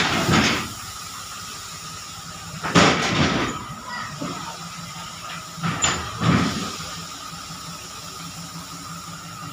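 Paddy grain pouring and sliding off a tipped tractor trailer bed onto a heap, a steady hiss with a steady whine underneath, surging louder three times: at the start, about three seconds in and about six seconds in.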